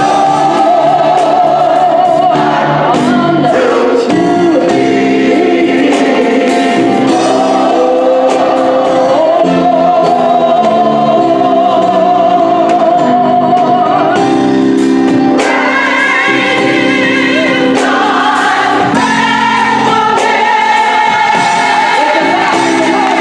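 Gospel choir singing held chords behind a woman's lead voice, which wavers with vibrato on long notes. Electric bass and drums accompany.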